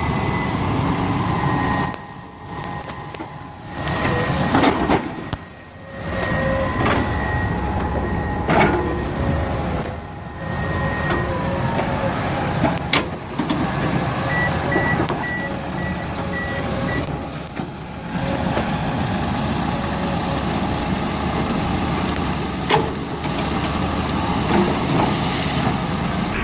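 Diesel engine of heavy earth-moving machinery running under load, with a few clanks. A little past the middle a reversing alarm gives a short run of evenly spaced beeps.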